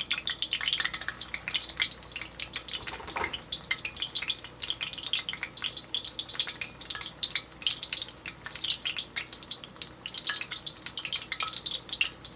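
Bread-and-spinach vadai frying in hot oil in a kadai: a steady crackling sizzle.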